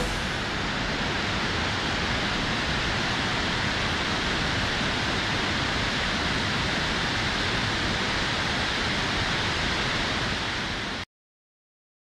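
Shiraito Falls, many thin streams of spring water falling about 20 m into a pool, rushing in a steady even roar. It cuts off abruptly near the end.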